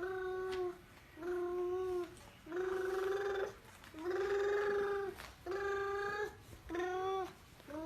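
A young girl making a string of funny vocal noises: about six short held sounds at one steady pitch, each under a second with brief pauses between. A couple in the middle have a rough, buzzy, purring quality.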